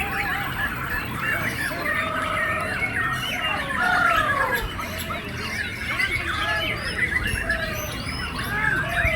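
Many caged songbirds singing at once, white-rumped shamas among them: a dense tangle of overlapping whistled phrases and chattering calls, with one loud falling whistle about four seconds in.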